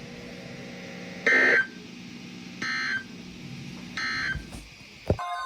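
Emergency Alert System end-of-message data bursts: three short bursts of digital squawk about 1.3 seconds apart, marking the end of the alert. Under them runs a steady low hum, and a click sounds just before the end.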